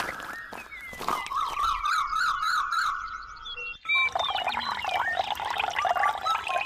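Several birds chirping and calling over one another, with a wavering, warbling call for a couple of seconds; the sound changes abruptly about four seconds in.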